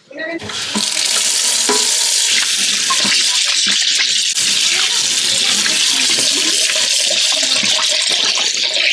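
Kitchen tap running steadily into a stainless steel sink while hands are rubbed and rinsed under the stream.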